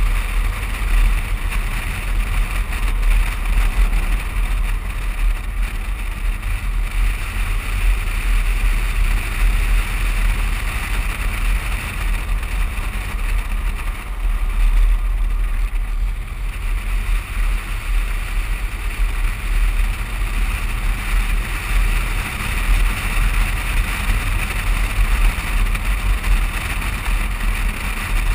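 Driving noise picked up by an action camera mounted on the outside of a moving vehicle: a heavy, fluctuating low rumble of wind buffeting the microphone over a steady hiss of tyres on the road.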